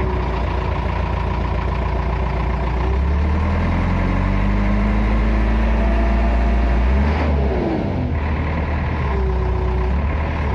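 JCB backhoe loader diesel engine picking up speed as load goes onto the front loader hydraulics, holding there for a few seconds, then dropping back to idle about seven seconds in. The engine takes the load fairly well.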